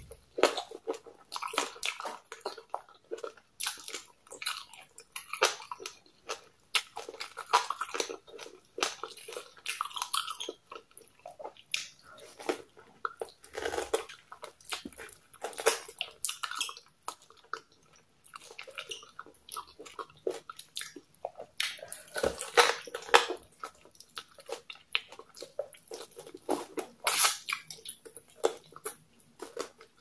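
Close-miked eating sounds: wet, sticky smacking and chewing of pounded yam in slimy okra soup eaten by hand, with bites into goat meat. Irregular short clicks and smacks, with a quieter stretch a little past the middle.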